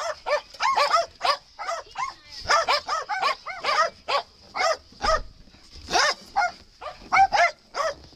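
Several small terrier-type dogs barking: a rapid, continuous string of high-pitched barks, about three a second, some overlapping.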